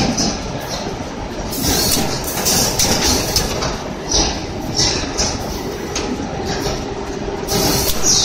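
Automatic bundling and strapping machine for corrugated board running, a steady mechanical clatter of its rollers and drives broken by short hissing bursts every second or so, the longest near the end as a board stack enters the press.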